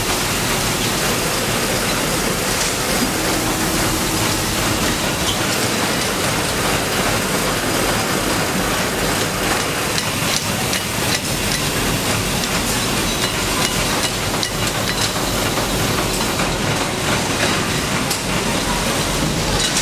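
Automatic stator coil winding machine running steadily, winding copper wire onto a spinning multi-coil former: an even mechanical whirr and rattle with scattered light ticks.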